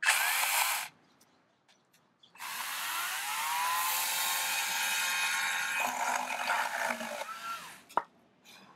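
Wild Badger 40V cordless electric chainsaw: a brief squeeze of the trigger, then the motor whines up to speed and runs for about five seconds as it cuts through a branch. The sound changes partway through and winds down near the end, followed by a sharp click.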